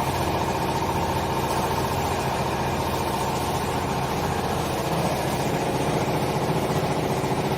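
Vertical baler's hydraulic power unit running steadily, its electric motor and pump giving an even mechanical hum.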